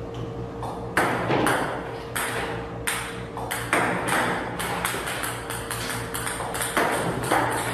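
Ping-pong balls fired from a table tennis robot, clicking and tapping in a rapid, irregular series as they bounce on the table and the net and are batted by a cat's paws. A steady faint hum runs underneath.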